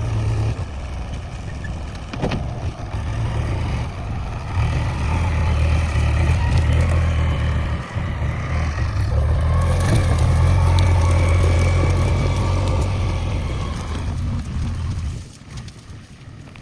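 Diesel engine of a JCB 3DX backhoe loader running under load while clearing vegetation. It gets louder about a third of the way in and eases off near the end. There is a single sharp knock a couple of seconds in.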